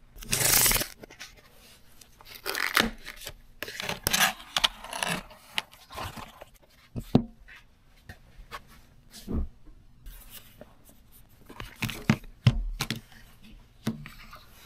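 An iPhone 16 Pro Max box being unsealed and opened: a loud tear in the first second as the paper seal strip is pulled off, then scraping, rubbing and rustling of cardboard and packaging, with sharp light knocks and clicks scattered through.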